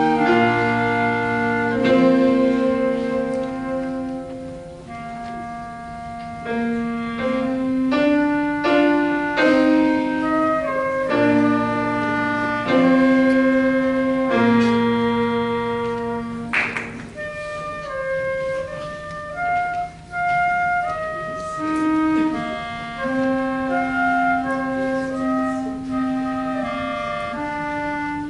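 A small student band ensemble of wind players with piano accompaniment playing a slow, peaceful piece: long held melody notes over low piano notes.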